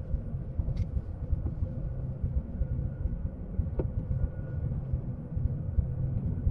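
Car driving slowly: a steady low rumble of tyres and engine, with a faint steady hum and a couple of small ticks.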